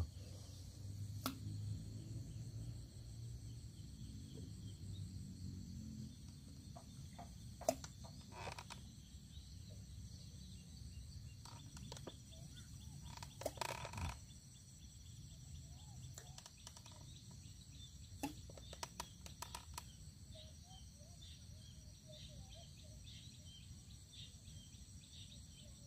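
Quiet lakeside ambience: a steady high insect buzz, with a few scattered sharp clicks and knocks and faint chirps.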